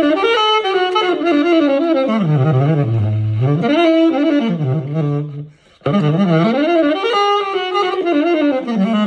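Tenor saxophone played through a Selmer Varitone pickup and amplifier: two melodic phrases that wind down to low notes, with a short breath break about five and a half seconds in. The notes come through clean, as they should.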